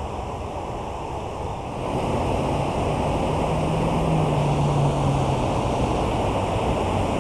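Steady rushing of water spilling through a concrete culvert, getting louder about two seconds in as the view moves closer to the water.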